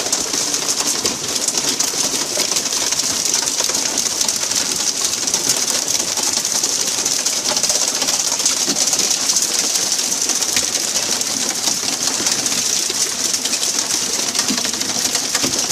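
Steady rushing hiss of wind and sea water on an open fishing boat under way, strongest in the high range, with a rough lower rumble underneath and no distinct single events.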